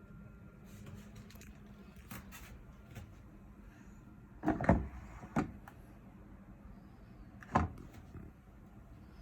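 Clunks and knocks of something being handled: light clicks, then two loud thuds about halfway through and another near the end. A low steady hum fades out about two seconds in.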